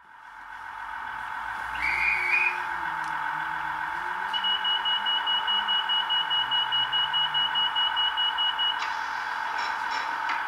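Digital diesel sound of a Bachmann class 158 DMU model, played through its small on-board speaker by a Zimo sound decoder: a steady engine hum with slowly rising and falling lower tones. A short chirp comes about two seconds in, then rapid beeping at about three to four beeps a second for some four seconds, and a hiss near the end.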